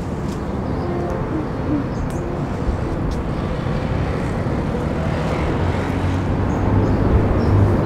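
Street traffic noise: a steady rumble of passing vehicles, with a low engine hum growing louder over the last couple of seconds.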